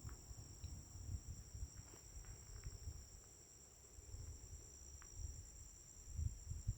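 Steady high-pitched insect chorus of crickets or cicadas, holding two even tones without a break, over a low uneven rumble.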